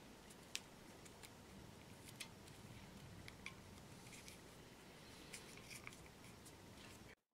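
Faint crinkling and small ticks of masking tape being pressed and smoothed onto a porcelain figurine, over a low hiss; the sound stops abruptly near the end.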